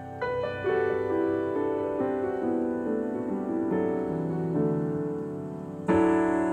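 Background piano music: ringing notes with a line of lower notes stepping downward, then a louder chord struck near the end.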